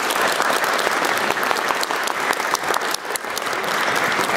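Audience applauding: many people clapping steadily, a dense patter of claps that follows the end of a solo piano performance.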